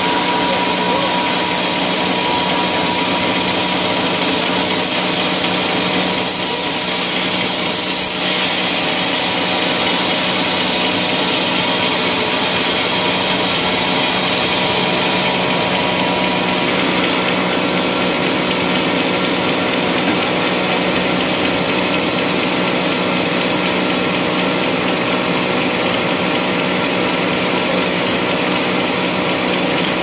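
Band sawmill running steadily, its blade cutting through a teak log, then running on without load once the cut is through, about halfway in.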